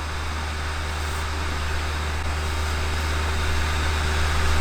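Small electric blower fan of an air-blown yard inflatable running steadily: a low hum with an even hiss of moving air.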